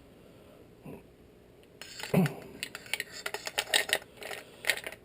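Small metal clicks and taps from a shotgun's trigger assembly being handled as its pin is pushed back in, starting about two seconds in.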